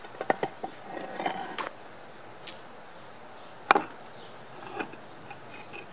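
Broken concrete slab pieces knocking and scraping against each other as they are lifted and set on top of one another: a run of small knocks in the first second and a half, one sharp knock a little under four seconds in, and a softer knock about a second later.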